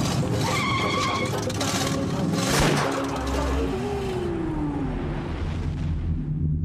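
Cartoon sound effects: a sudden whoosh about two and a half seconds in, then a falling tone, over a low rumble.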